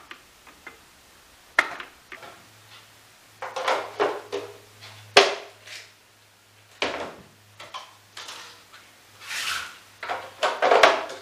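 Plastic tail light housings and small parts being handled and set down on a wooden workbench: scattered knocks, clicks and rustles, with one sharp click about five seconds in. A faint low hum runs underneath.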